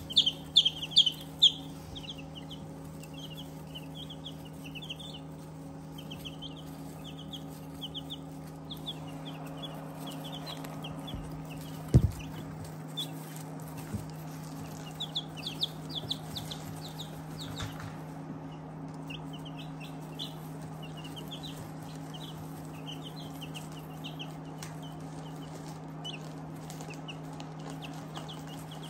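A brood of two-week-old Black Onyx chicks peeping in many short, high chirps, busiest in the first couple of seconds. A steady low hum runs underneath, and there is a single sharp knock about twelve seconds in.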